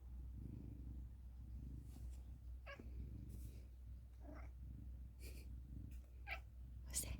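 Domestic cat making about four short chirping calls over a few seconds, the excited chirp a cat gives at the sight of birds.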